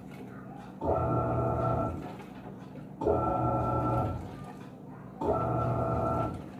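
Panasonic 14 kg washing machine's motor humming in bursts of just over a second, about every two seconds, three times, with short pauses between: the wash-cycle agitation, turning the load one way and then the other.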